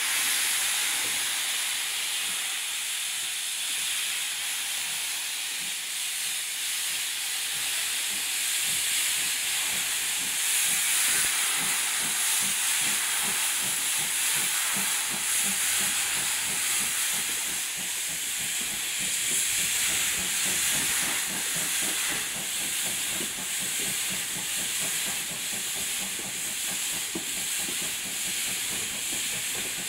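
GWR 9400-class pannier tank locomotive 9466 hissing steam steadily as it runs, with a quick low rhythmic beat from the moving engine underneath that grows busier after the first few seconds.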